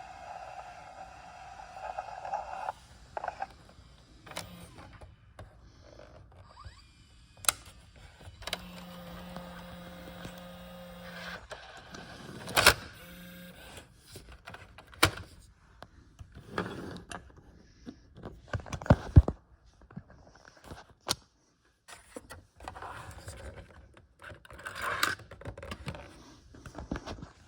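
Handling of a JVC compact VHS-C camcorder: scattered plastic clicks and clunks of its buttons, switches and cassette compartment. A small motor in the tape mechanism hums for about three seconds near the middle.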